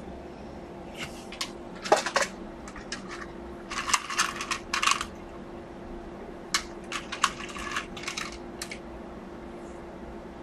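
Small metal parts and hand tools clinking and clattering against a stereo receiver's metal chassis, in scattered short bursts, with a faint steady hum underneath.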